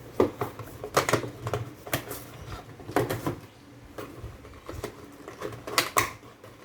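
Unboxing handling noise: hands working the packaging and a plastic car charger, giving irregular clicks, taps and rustles, with a few sharper knocks about a second apart early on and a pair near the end.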